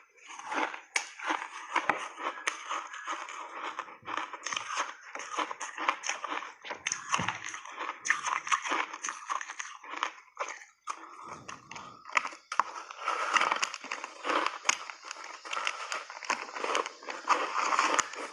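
Hard ice coated in milk powder being bitten and chewed, a dense run of irregular crunching and crackling close to the microphone.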